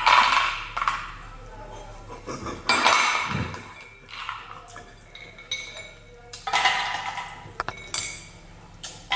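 Parts of a manual meat grinder being handled: about five short bursts of clinking, scraping and knocking, over a steady low hum.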